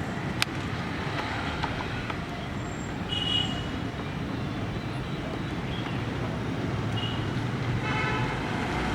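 Small battery-powered DC gear motor of a homemade remote-control road roller running steadily as the model drives, over a steady outdoor background noise.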